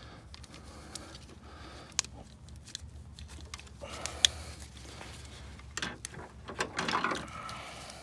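Scattered sharp plastic clicks and handling noise as a wiring harness connector is worked on a car's under-hood fuse box by hand and screwdriver. The loudest click comes about four seconds in, with a rustle of handling near the end.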